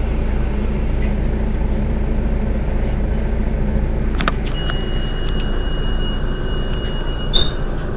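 Mercedes-Benz Citaro city bus engine idling at a standstill with a steady low rumble. About halfway in there is a click, then a steady high-pitched tone for about three seconds that ends with a brief sharp sound near the end.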